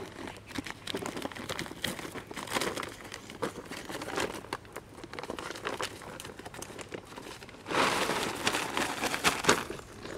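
Plastic bag and woven plastic rice sack crinkling and rustling as they are untied and handled, with a louder, denser rustle from about eight seconds in as the bag is pulled open and lifted.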